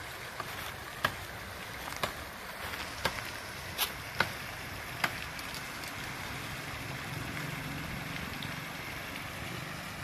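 Steady rush of river water spilling over a small weir, with sharp clicks about once a second during the first five seconds.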